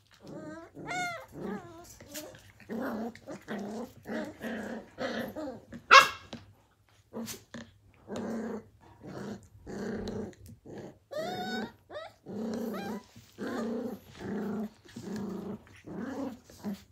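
Australian cattle dog puppies play-fighting: a run of short puppy growls, with high rising whines and yips near the start and again later, and one sharp, loud high yelp about six seconds in.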